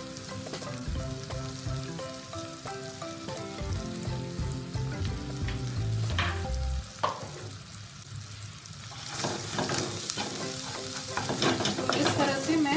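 Beaten egg sizzling in hot oil in a nonstick wok. From about nine seconds in it turns louder, as a spatula scrapes and stirs, breaking the setting egg into pieces.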